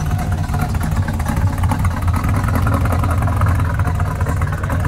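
Chevrolet C10 stepside pickup's engine running with a steady low exhaust rumble as the truck drives slowly past.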